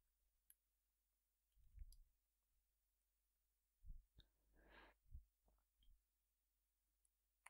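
Near silence with a few faint, scattered computer-keyboard keystrokes as code is typed.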